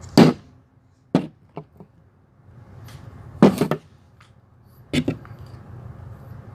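Knocks and light clatter of the ring light's tripod parts being handled. A sharp knock comes first, then a few lighter taps, a longer clatter about halfway through, and another knock later on.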